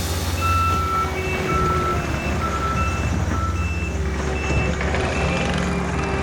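A construction machine's backup alarm beeping about twice a second, alternating between a higher and a lower tone, over an engine running steadily. The beeping stops about a second before the end.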